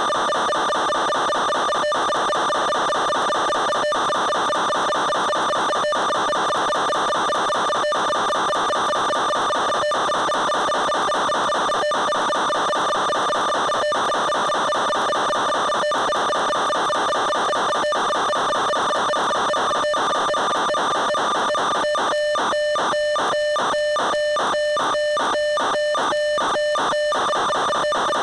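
A steady buzzing whine of several fixed tones on an FPV plane's onboard audio, dropping out briefly about every two seconds. Near the end it chops on and off about three times a second for some five seconds, then turns steady again.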